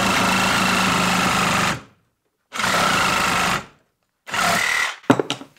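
DeWalt DCS367 20V compact brushless reciprocating saw cutting through lumber. It cuts out and restarts, running in three spells with short silences between them, then a few very short bursts near the end. The stopping is the small 1.5 Ah battery failing under load.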